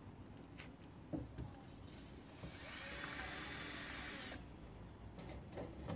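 Cordless drill running steadily for about two seconds in the middle, fastening a bulb holder to a wooden shelf. A few light knocks and handling clicks come before and after it.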